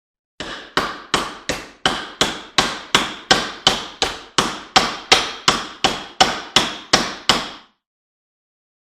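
Hammer blows on metal, about twenty strokes in a steady rhythm of nearly three a second, each ringing briefly, stopping near the end. The work is knocking the bearing and steel bushing out of an electric motor's cast aluminum end bell.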